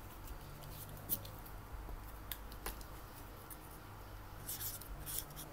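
A few light clicks from a card and marker pen being handled, then a felt-tip marker scratching in quick short strokes across a paper label on a plastic card near the end, over a faint steady low hum.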